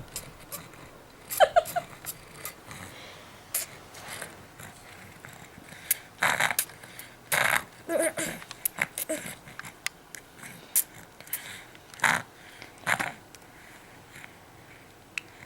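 A dog licking and slurping at its drool: irregular wet clicks and smacks, with a few brief higher-pitched squeaks about one and a half and eight seconds in.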